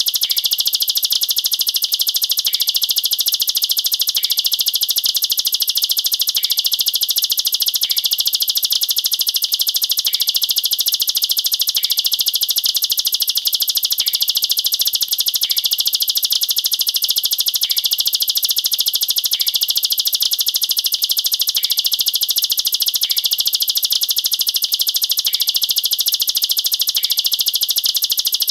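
Plain prinia (ciblek sawah) calling its 'nembak rapat' song: a dense, unbroken, high-pitched rapid-fire trill, likened to AK-47 fire.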